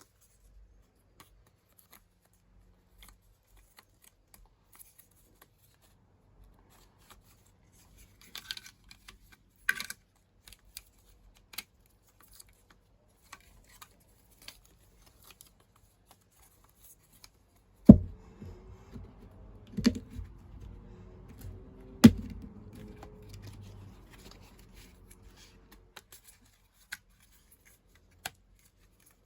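Handling noises from work on an appliance: scattered small clicks and rustles. Past the middle come three sharp knocks about two seconds apart, each leaving a short low ringing that fades over a few seconds.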